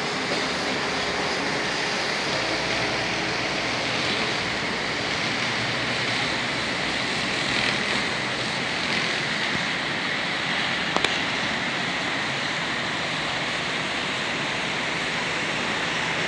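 Steady wash of distant city traffic noise, with no single vehicle standing out. A single sharp click sounds about eleven seconds in.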